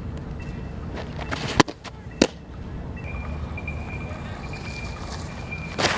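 Fastpitch softball pitches: two sharp pops about half a second apart, the second the ball smacking into the catcher's mitt, and another pop near the end as the next pitch is thrown.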